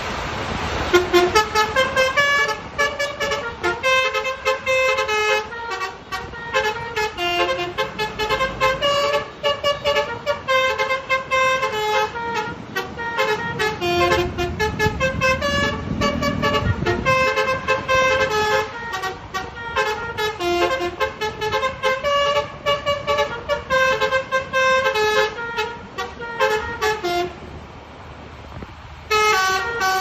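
A bus's Basuri telolet musical horn playing a quick melody of short stepping notes nonstop. A low rumble sits underneath about halfway through, and there is a brief lull just before the end before the notes pick up again.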